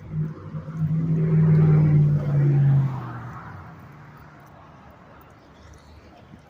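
A motor vehicle driving past close by: a low, steady engine hum with road noise, loudest over the first three seconds and then fading quickly as it moves away.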